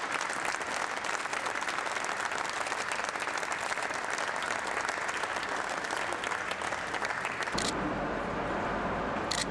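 Crowd applauding, a dense steady clapping that breaks off abruptly about three-quarters of the way through, leaving a duller background.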